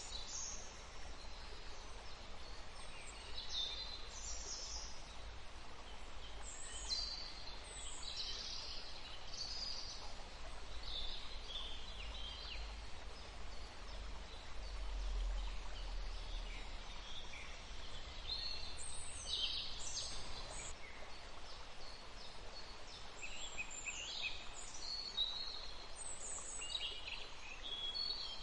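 Several songbirds chirping and singing in short, high phrases one after another, over a steady background hiss with a low rumble underneath.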